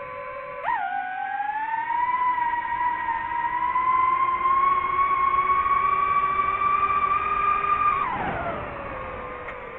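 DJI FPV drone's motors and propellers whining, heard from on board. The pitch jumps up sharply under a second in as the throttle is punched for a climb, creeps slowly higher while held, then drops steeply about eight seconds in as the throttle eases off.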